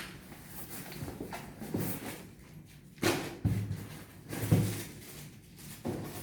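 A few irregular knocks and thumps with scraping in between, from handling a large cardboard TV box and its packing; the loudest knocks come about 3 and 4.5 seconds in.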